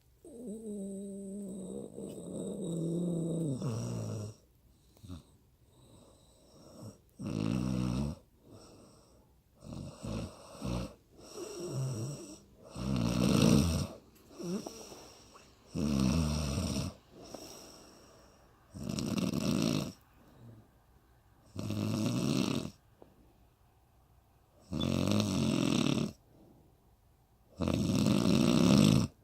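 A woman snoring in her sleep. One long, drawn-out snore falls in pitch, then shorter snores follow about every three seconds.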